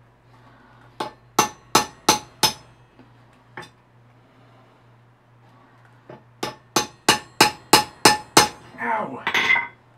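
Hammer striking a steel punch on a Fulton 542 boat winch part resting on an anvil: a quick run of five ringing metal blows, a single lighter tap, then about eight more blows in a row. A short rattling clatter follows near the end.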